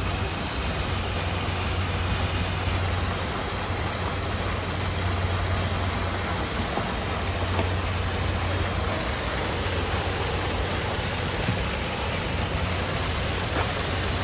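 A boat engine idling with a steady low hum, under a constant hiss of rushing water.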